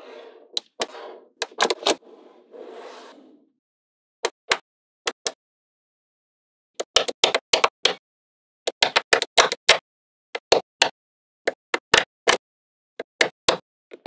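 Small neodymium magnetic balls clicking sharply as panels of balls are snapped together, single clicks and quick clusters of clicks, with a softer rustling of balls shifting in the first few seconds.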